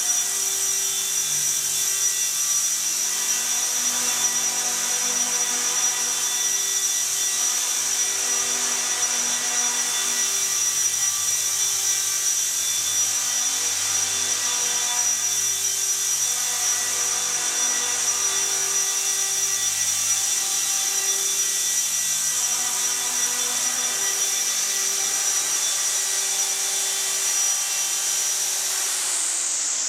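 Small electric RC helicopter (Gaui Hurricane EP200 V2 SE with a five-blade rotor head) running: a steady, high motor-and-gear whine over the rotor's buzz. In the last second the whine begins to fall in pitch as the rotor spools down.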